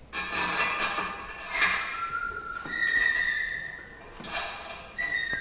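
Steel wheel-clamp parts scraping and clinking as a coach bolt, bushes and nut are fitted by hand. A few held high squeaks come in near the middle and again near the end.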